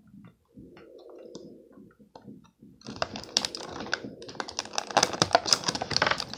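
Scissors cutting through a stiff clear plastic blister pack, a dense run of rapid snipping clicks and plastic crackle that starts about three seconds in. The first part is quieter, with only a soft low hum and a few faint clicks.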